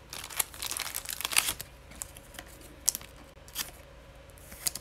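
Glossy trading cards handled and slid against one another: a run of crisp rustling and scraping in the first second and a half, then a few light, separate clicks.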